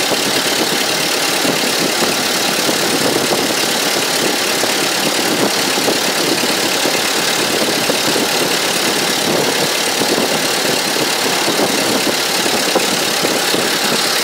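Engine of a 1912 REO car running steadily on the move, with a fast, even chatter of firing under a constant rush of road and wind noise.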